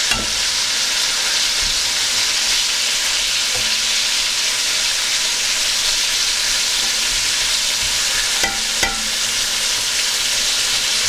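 Green chillies sizzling steadily as they deep-fry in hot oil in a kadhai, with a couple of light clicks about eight and a half seconds in.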